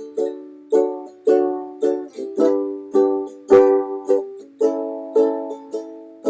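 Ukulele strummed in steady chords, a little under two strums a second, each ringing and dying away before the next.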